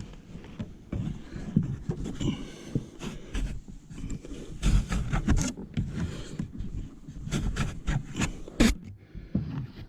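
Irregular scraping and light knocks of a tinting squeegee worked over window film on car rear glass, pushing the last trapped liquid out from under the film at the bottom edge.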